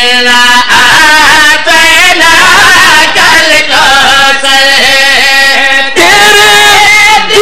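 A man's voice chanting a qaseeda, a devotional poem, into microphones, drawing out the word 'Allah' and holding long melodic notes that bend up and down.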